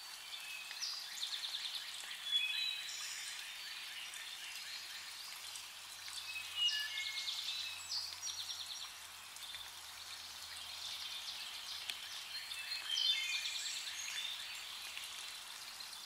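Several songbirds singing at once: repeated fast trills and short whistled notes at different pitches, loudest about two seconds in, near the middle and near the end.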